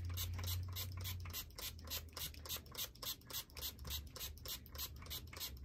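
Quick repeated spritzes from a trigger spray bottle of water-and-conditioner detangler being sprayed onto a doll's hair, about four or five short hissing bursts a second.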